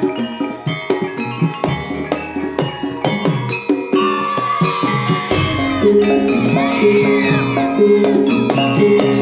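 Live jaranan gamelan music: drums and struck metal percussion in a quick, steady rhythm. A high melody line with bending pitch comes in about four seconds in.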